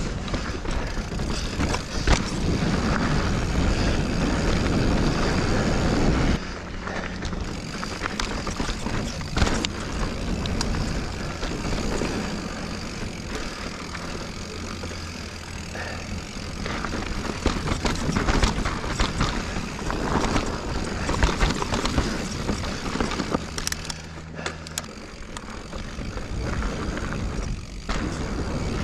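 Giant Reign Advanced Pro 29 mountain bike riding down a dirt and rock trail: wind rushing over the microphone and tyres rolling on the ground, with frequent knocks and rattles from the bike over bumps.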